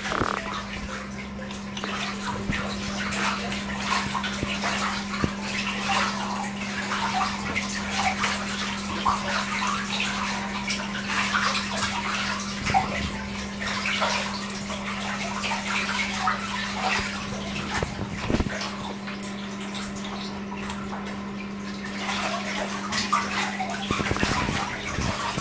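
Young domestic ducks splashing and bathing in a small plastic paddling pool: continuous irregular splashing and dripping water, over a steady low hum.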